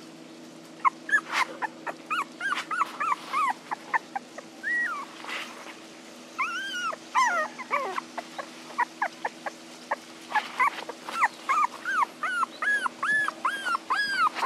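Young puppies whimpering and yelping: a rapid string of short, high-pitched cries that starts about a second in, with a short lull midway, the crying of pups wanting their mother.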